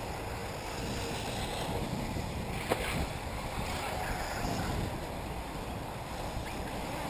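Wind buffeting the microphone outdoors, a steady rumbling rush, with one short click about two and a half seconds in.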